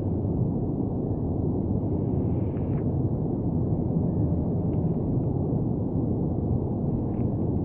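Twin-engine widebody jet on its landing roll along a wet runway: a steady, low rumble of engine noise and tyre spray.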